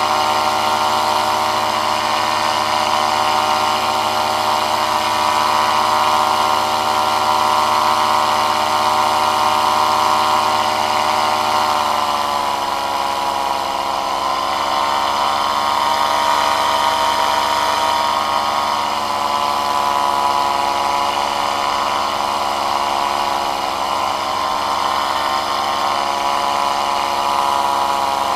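A small propeller aircraft's engine running steadily in flight, heard from on board. Its pitch drops slightly about twelve seconds in and holds at the lower speed.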